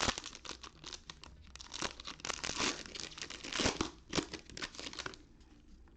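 Foil trading-card pack wrappers crinkling and tearing open by hand, a run of sharp crackles that stops about five seconds in.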